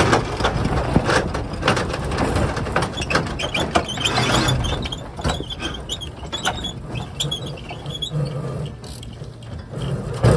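Strong wind buffeting the microphone aboard a sailboat, with many sharp clicks, rattles and short squeaks of the boat's deck gear.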